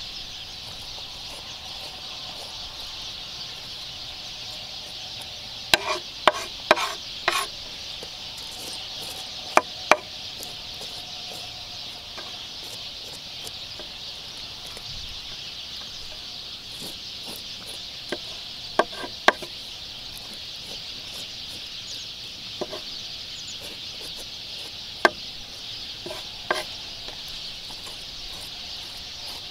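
Chef's knife knocking and scraping on a wooden cutting board while roasted poblano peppers are cut open and scraped clean: about a dozen sharp taps in scattered clusters, over a steady high background hiss.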